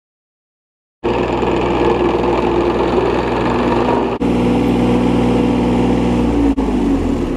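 Engine of heavy construction equipment running loud and steady, starting about a second in, with two very brief dropouts and a shift in its pitch near the end.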